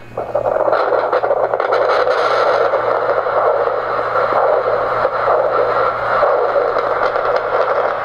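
Hand-held Doppler ultrasound probe's audio output, held over the jaw joint in front of the ear: a loud, steady hiss that switches on just after the start. This is the Doppler's background noise as the probe is positioned, before any jaw movement.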